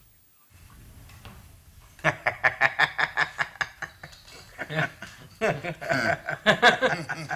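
Several men laughing and chuckling in quick short bursts, starting about two seconds in after a quiet moment.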